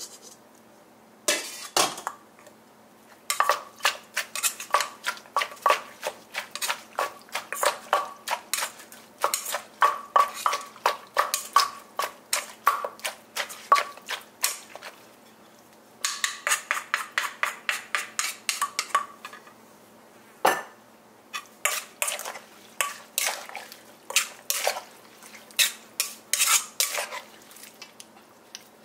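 Wooden pestle pounding in a clay mortar, with a spoon turning the mix between strokes: sharp knocks about three a second with a faint ring, in several runs with short pauses and one lone harder knock partway through.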